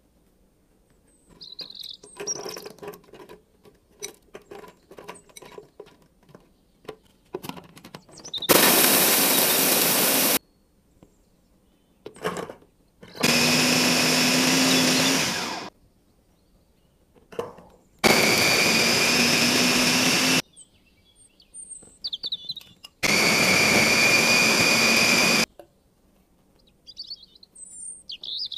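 Electric food chopper run in four bursts of about two seconds each, its motor whining steadily as the blades chop chillies, shallots and garlic into a paste. Before the first burst, chillies clatter and rattle as they are dropped into the plastic chopper bowl.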